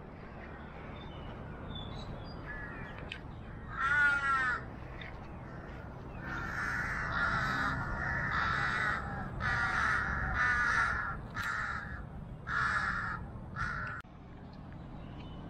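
Crows cawing: one call about four seconds in, then a run of harsh caws, several in a row, from about six seconds until shortly before the end, over a steady low background rumble.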